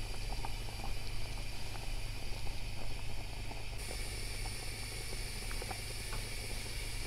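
A thick stew of tarhana, cowpeas and lamb boiling in a steel pot, bubbling steadily with many small scattered pops.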